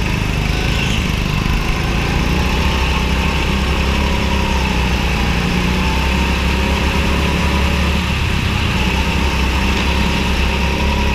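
Small go-kart engine running steadily, its pitch wavering only a little.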